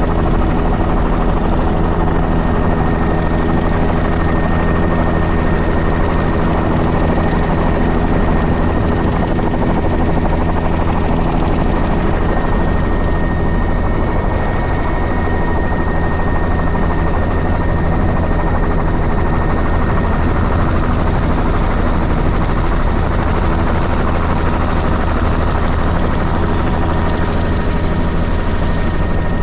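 Helicopter in flight, heard from inside the cabin: a loud, steady engine and rotor drone with a constant high whine over it.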